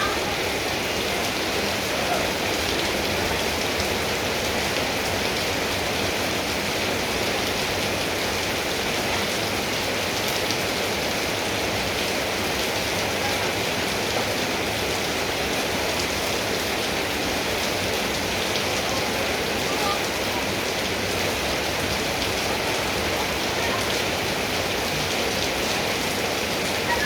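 Steady heavy rain falling and pattering on surfaces, an even hiss with no let-up.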